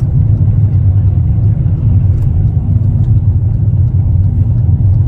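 Steady low rumble of a car travelling at highway speed, heard from inside the cabin: road and engine noise.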